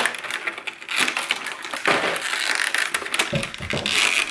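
Thin clear plastic mold halves crinkling and crackling as they are handled and pressed together, with a few soft knocks near the end.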